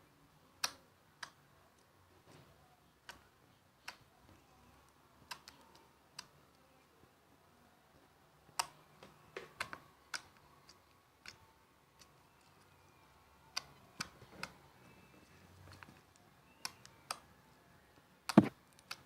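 Clear slime with air bubbles in it being poked with fingers, giving irregular sharp clicks and pops, with the loudest one near the end.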